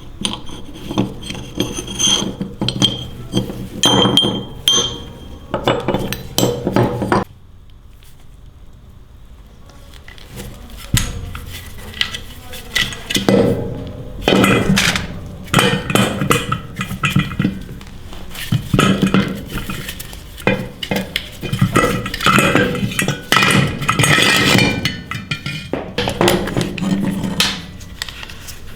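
Loose metal parts clinking and clattering as they are handled and knocked together, some strikes ringing briefly; the clatter stops for a few seconds about a quarter of the way in, then resumes more densely.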